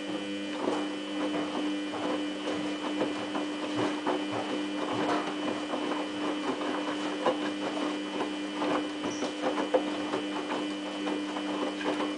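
Samsung WF8804RPA washing machine's drum turning at about 50 rpm during the main wash: a steady motor whine of several held tones over many irregular small knocks and splashes of the wet load tumbling. It starts at once and cuts off suddenly at the end as the drum stops.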